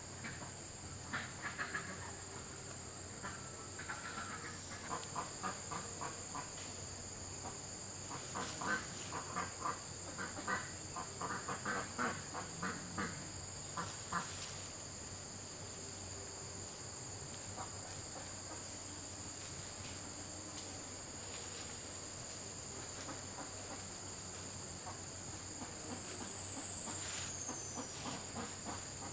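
Steady high-pitched drone of insects, with several bursts of short rapid bird calls and, near the end, a single high call falling in pitch.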